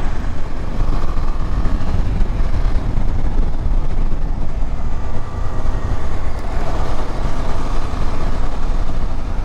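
KTM 250 Adventure motorcycle riding along at steady speed, its engine under a heavy, steady rumble of wind on the microphone.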